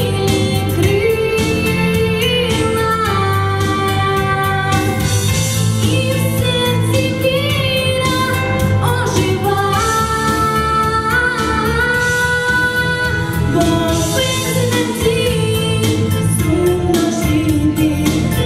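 A girl singing solo into a handheld microphone over instrumental accompaniment, holding long notes that waver in pitch.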